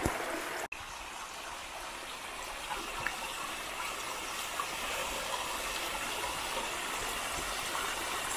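Small mountain waterfall rushing steadily. The sound cuts out for an instant a little under a second in, then carries on unchanged.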